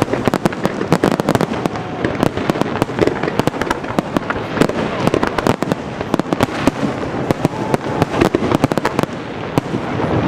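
Fireworks going off in quick succession: a dense, continuous run of sharp bangs and crackles.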